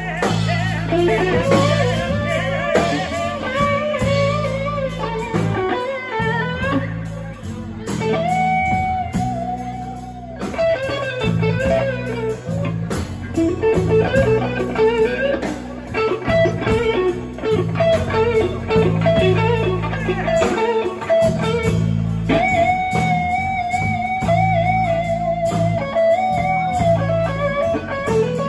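Live blues band playing an instrumental passage: a Stratocaster-style electric guitar plays lead lines with bent and long held, wavering notes over bass guitar and drums.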